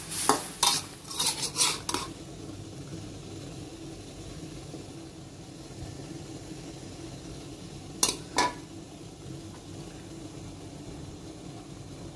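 Metal spatula scraping and clanking against a wok while stir-frying angled gourd with egg, several quick strokes in the first two seconds, then two sharp clinks about eight seconds in as the food is scraped out onto a plate. A steady low hum runs underneath.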